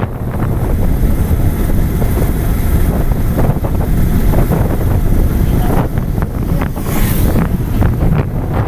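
Wind rushing over the microphone of a moving motorcycle, a steady low rumble, with a few brief clatters about six to seven seconds in.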